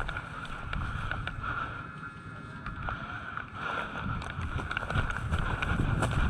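Rumbling wind and movement noise on a worn camera's microphone, swelling about halfway through, with a faint steady hiss and scattered small clicks.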